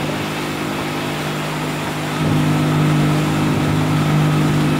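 Passenger motor launch's engine running steadily at full speed, a low even hum over the rush of water from the hull and wake. The engine grows louder about two seconds in and stays there.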